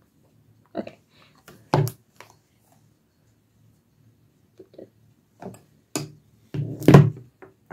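Makeup tools being handled: a few scattered sharp clicks and taps, the loudest one near the end.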